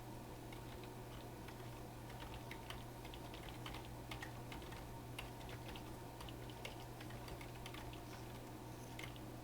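Typing on a computer keyboard: quick, irregular key clicks in runs, over a low steady hum.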